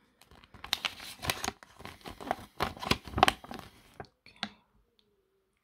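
A folded paper instruction leaflet being unfolded by hand: a run of paper rustling and crackling for about four seconds, dying down to a few faint ticks near the end.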